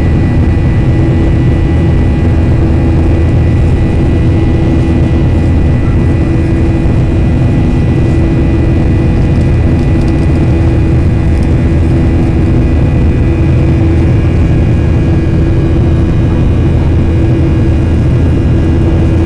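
Steady cabin noise of a Boeing jet airliner in flight, heard from inside the passenger cabin: an unbroken jet-engine and airflow drone with a few held hum tones running through it.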